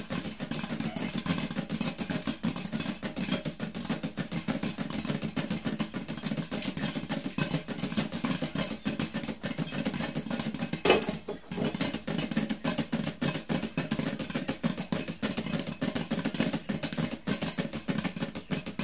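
Popcorn kernels popping rapidly and continuously inside a lidded frying pan on a gas burner, the pan being shaken to move the popped corn up. One louder knock comes about eleven seconds in.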